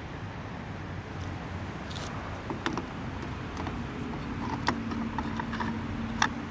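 Plastic fuel cap being screwed into a car's filler neck, with a few sharp clicks and lighter ticks from its click-to-tighten ratchet. A low steady hum comes in about four seconds in.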